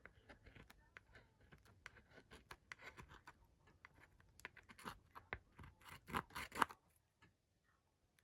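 Faint scratching strokes of a tool scraping sticky sticker residue off a tablet's plastic casing, irregular and louder in a run a little past the middle, then stopping shortly before the end.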